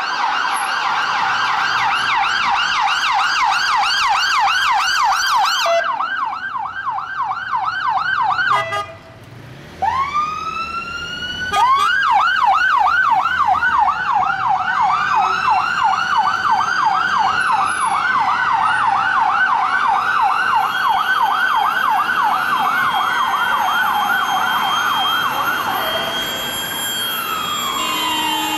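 Electronic sirens of responding Metropolitan Police cars. A rapid yelp breaks off about eight seconds in, then comes back with two rising wails and yelps on, while a second siren runs slow rising and falling wails over it.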